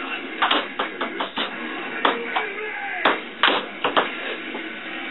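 Ping-pong ball hitting paddles and the table during a rally: a string of irregular sharp clicks, about ten of them.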